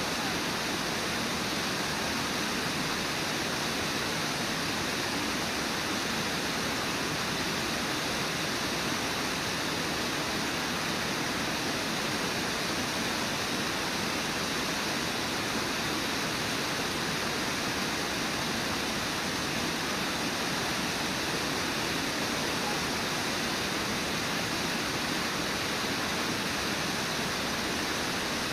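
Brooks Falls: a river waterfall pouring over a wide ledge, a steady, unbroken rush of water.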